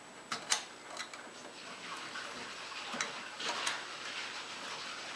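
Utility knife scoring iron-on edge banding along a combination square: a few sharp ticks, then a light, steady scraping as the blade draws through the banding until it cuts through.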